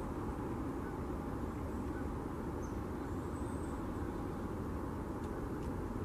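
Steady low outdoor rumble of background noise, with a couple of faint high chirps about three seconds in.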